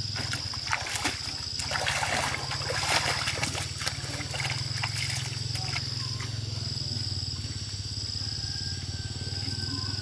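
Footsteps and light splashing on the stones and water of a shallow stream, with rustling and small knocks, mostly in the first few seconds. Underneath runs a steady low hum and an insect's high trill that repeats in roughly one-second stretches.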